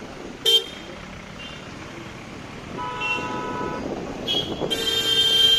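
Vehicle horns of several pitches honking in stopped traffic, over the noise of idling traffic. A short loud honk comes about half a second in, a second horn sounds for about a second midway, and a long, loudest blast starts near the end.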